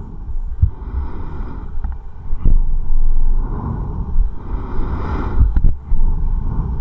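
Breathing inside a Scott Promask full-face mask fitted with a corrugated breathing hose: a few slow breaths of air rushing through the mask and hose over a steady low rumble.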